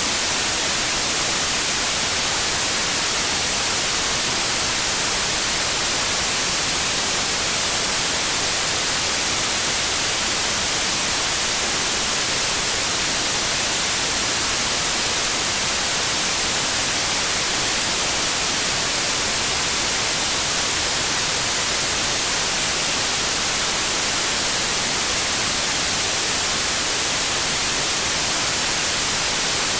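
Steady white noise: an even, unchanging hiss, strongest in the highs, played to soothe a crying infant.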